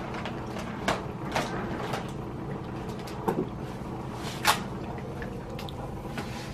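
Large plastic bag of aquarium substrate being opened and handled: several separate sharp crinkles and rips of plastic, the loudest about four and a half seconds in.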